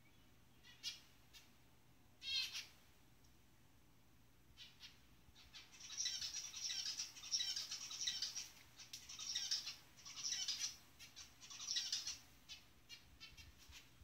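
Zebra finches calling: a couple of short high chirps in the first few seconds, then about seven seconds of dense, rapid chattering with short breaks, thinning to scattered chirps near the end.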